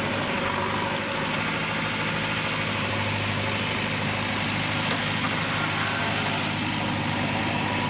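Diesel tractor engine running steadily, heard close up from the driver's seat as a constant low hum.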